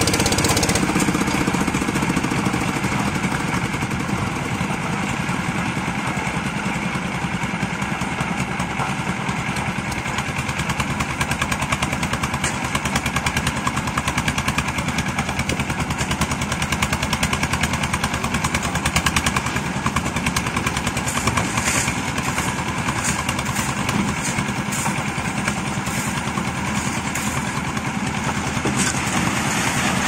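Engine of a building-site concrete mixer and bucket hoist running steadily, with a fast, even beat.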